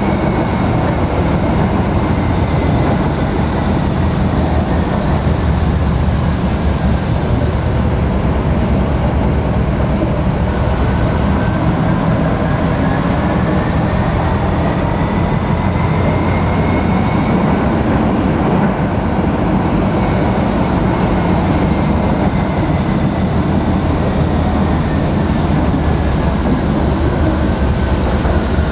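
Tram running along its rails: a steady, loud rumble of wheels on track, with a motor whine whose pitch falls, rises again about halfway through, and falls once more near the end as the tram slows, speeds up and slows again.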